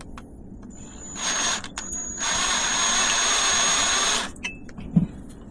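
Power drill enlarging a pilot hole in a bicycle frame with an oiled bit: a short burst about a second in, then about two seconds of steady running with a high motor whine, stopping abruptly.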